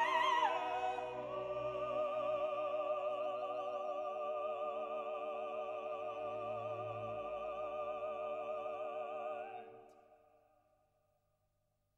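Classical background music: a long held note with vibrato over sustained chords, fading out near the end.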